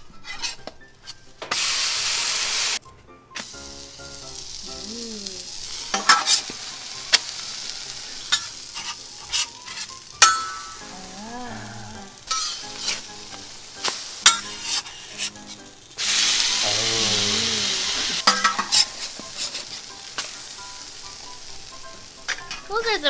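Pancake batter sizzling on a hot stainless steel flat-top griddle, with sharp clicks and scrapes of a metal spatula as the pancakes are flipped. The sizzle gets louder twice, about two seconds in and again near the two-thirds mark.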